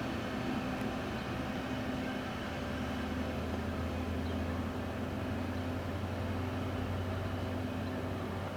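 Steady low engine drone with a constant hum and no change in pitch, like a vehicle or train engine idling.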